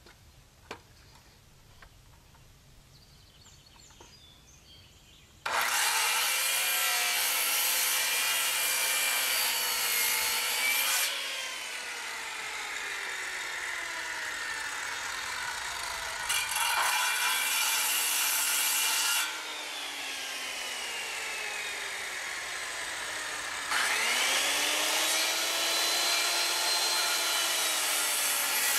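Corded circular saw cutting a bird's-mouth notch into a wooden rafter board. It starts about five seconds in and is triggered on and off three times; each time it is released its whine falls as the blade coasts down, and near the end it spins up again with a rising whine.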